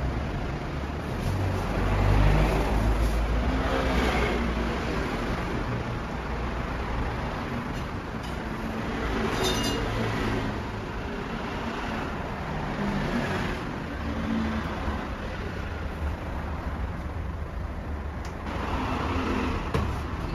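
A long wooden rolling pin worked back and forth over a large sheet of shaobing dough on a stainless-steel table, a low rolling rumble that swells and eases with the strokes, over steady background noise. A short metallic ring sounds about halfway through.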